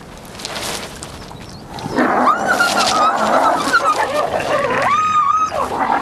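Two wolves snarling and whining at each other while squabbling over food. A harsh snarl starts about two seconds in, and near the end one gives a high, wavering whine.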